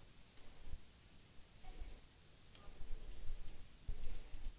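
A few sharp light clicks, about four spread over the few seconds, with soft low knocks between them, from small phone parts and tools being handled on a repair bench.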